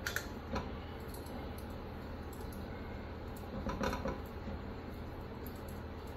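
A plastic spatula and hands working sticky biscuit dough in a stainless steel mixing bowl: a few light clinks and scrapes against the metal, two near the start and a cluster about four seconds in, over a steady low hum.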